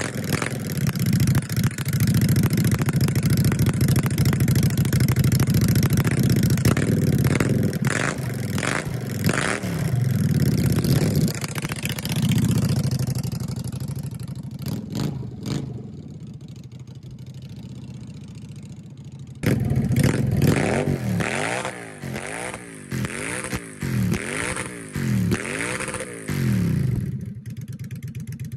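2006 Honda Shadow VLX 600's carbureted V-twin running loud on a test start just after being rejetted with a jet kit. It is revved several times, then fades as the bike rides away. About two-thirds of the way through it is close and loud again, revved in a run of quick blips, and it settles to a steady idle near the end.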